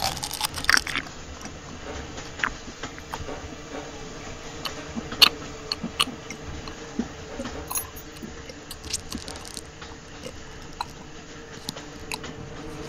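Wet biting and chewing sounds of a vampire feeding at a man's neck: irregular smacks, clicks and crunches over a faint steady hum.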